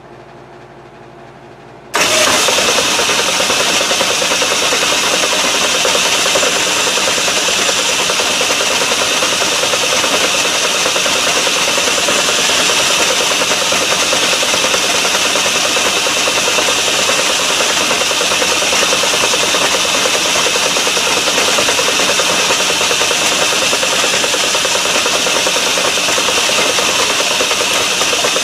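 Metal lathe switched on about two seconds in, then running steadily at speed while a 3/8-inch reamer is fed by hand from the tailstock into the model engine cylinder's bore.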